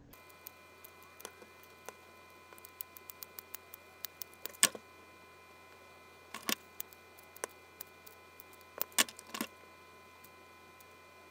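Scattered light clicks and knocks from handling a hot glue gun and pressing LED light wires down onto the MDF panel, the loudest knock a bit over four seconds in and a close pair around nine seconds. A faint steady high whine runs underneath.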